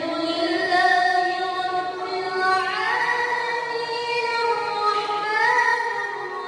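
A young man's voice in melodic Quranic recitation, holding long ornamented notes and gliding up into a higher note about two and a half seconds in and again about five seconds in.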